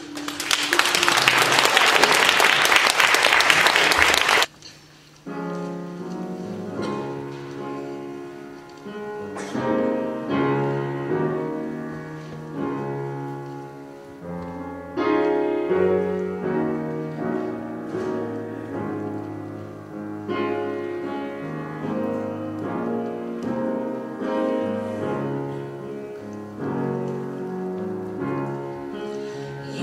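Audience applauding loudly for about four seconds, cutting off. After a brief pause a piano starts playing alone, with slow, held notes and chords.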